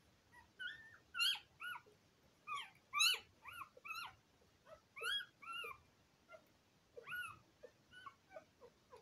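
Two-day-old Border Collie puppies squealing: a quick run of short, high cries, each rising and falling in pitch, loudest in the first half and fading near the end.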